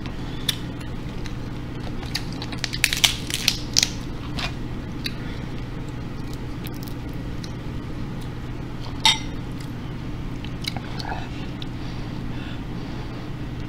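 Boiled snow crab shells clicking and cracking as they are picked apart by hand, with a cluster of sharp clicks a few seconds in and one more about nine seconds in, over a steady low hum.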